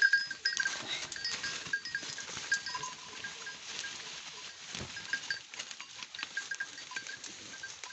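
Goats moving and browsing through dense wet undergrowth: a steady rustle with many short, high, fixed-pitch pips scattered throughout.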